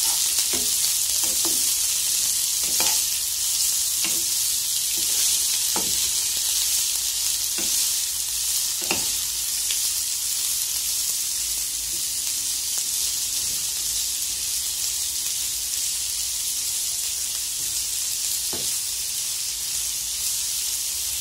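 Sliced onion and green chile sizzling in hot oil in a non-stick frying pan over medium heat, a steady high hiss. A wooden spoon stirs them, knocking lightly against the pan now and then, more often in the first half.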